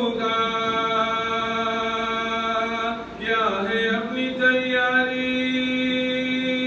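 A single man's voice chanting a munajat qasida without accompaniment, holding long drawn-out notes. About three seconds in he breaks off briefly, then starts a new phrase with a short ornamented run before settling on another long held note.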